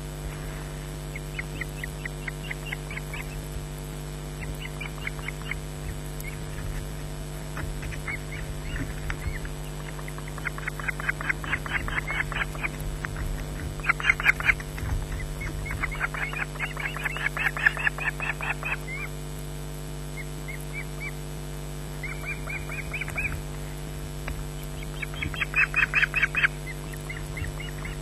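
Ospreys calling at the nest: several runs of short, rapid, high chirps, the loudest near the middle and near the end, over a steady electrical hum from the nest camera's audio.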